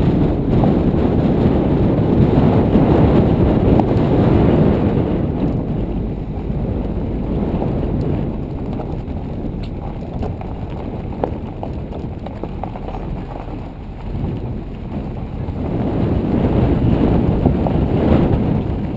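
Wind buffeting the microphone of a bonnet-mounted camera, over a low rumble of a car driving slowly on gravel. The rumble swells and eases and grows loud again near the end, with a few faint clicks in the middle.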